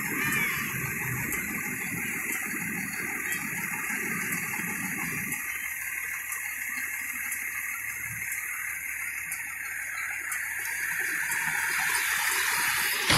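Fire engine moving slowly past at close range, a steady rushing noise with little low engine note after the first few seconds.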